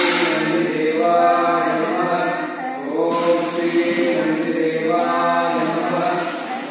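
Several voices chanting a devotional mantra together in a steady, sung chant, with a short burst of noise about three seconds in.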